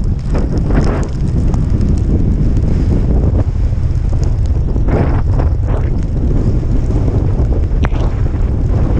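Heavy wind buffeting the microphone of a camera on a bicycle moving fast downhill, a steady loud low rumble. Hiss from the Kenda K-Rad tyres on wet asphalt swells briefly about five seconds in.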